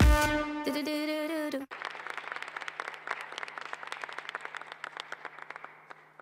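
Electronic dance music cuts off abruptly, then an audience applauds, with a low steady hum underneath; the clapping thins and fades out near the end.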